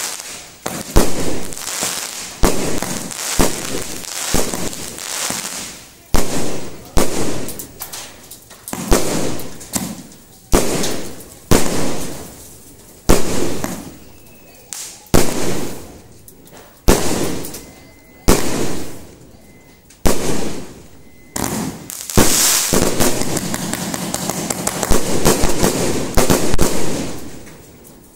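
Fireworks bursting overhead in quick succession, one sharp bang about every second, each fading away over a second or so. Near the end comes several seconds of dense, continuous crackle.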